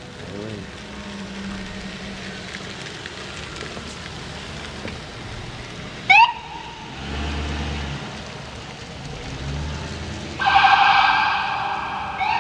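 Police patrol car siren: a short rising whoop about six seconds in, then from about ten seconds a loud, buzzing horn tone that slowly fades, with another brief whoop near the end. A low vehicle rumble comes and goes between them.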